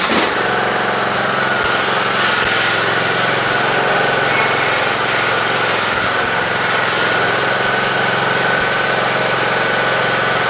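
Craftsman riding lawn tractor's engine running steadily, with a thin steady whine over the drone, as the tractor drives forward on its newly fitted ground drive belt in a test of whether it will pull.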